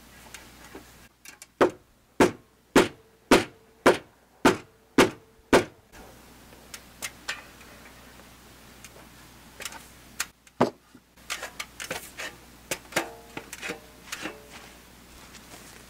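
A long-handled wooden mallet driving a wooden peg into a roof purlin: eight hard blows about two a second, each with a short ring, then lighter, scattered knocks.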